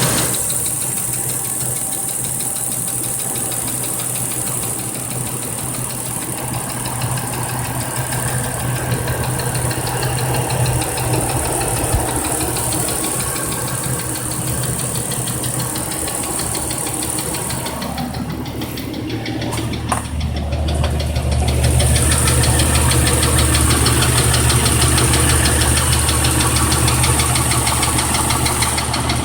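1997 Jeep Cherokee engine running with a fast, regular knock, which the owner takes for rod knock: a worn connecting-rod bearing. It gets louder and deeper about two-thirds of the way through.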